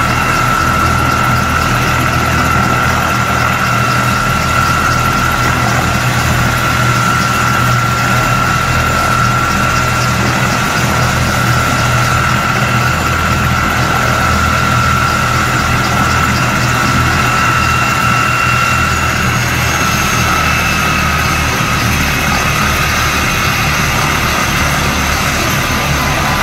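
Turbine helicopter running on the ground with its rotor turning: a loud, steady high turbine whine over a low rumble. About two-thirds of the way through, the whine's pitch shifts slightly lower and thinner high tones come in.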